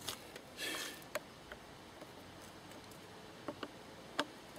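Faint handling noises from an engine's rubber air-intake duct being pushed and fitted into place: a short rubbing scrape about half a second in, then a few light clicks and taps as a screwdriver goes to the hose clip.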